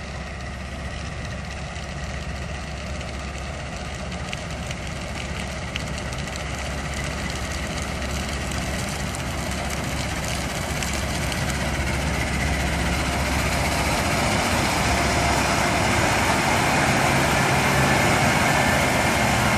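Engine of a harvesting machine running steadily and growing gradually louder.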